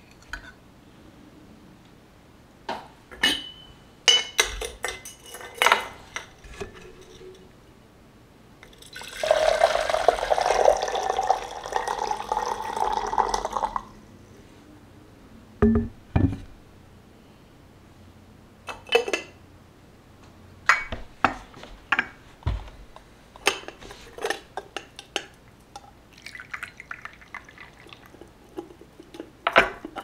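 Hot water poured into a glass teapot for about five seconds, around a mesh tea infuser. Before and after it come light clinks of glass and china and small taps of tableware being handled.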